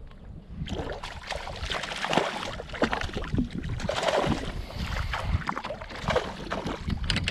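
Water splashing and sloshing against a plastic fishing kayak's hull in short, irregular bursts, over a low rumble of wind on the microphone.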